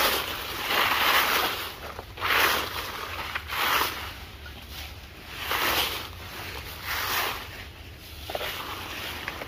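Broom sweeping over ground litter, a series of scratchy swishes about one every second or so.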